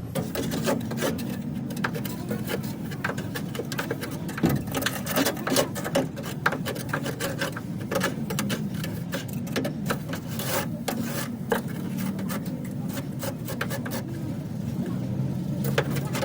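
Hand-tool work on a car body: rapid, irregular scraping and tapping strokes, like filing or rubbing down a panel.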